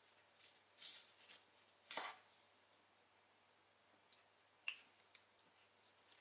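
A kitchen knife made from an old saw blade chopping onion on a wooden cutting board: about half a dozen faint, irregular taps of the blade on the board, the loudest about two seconds in.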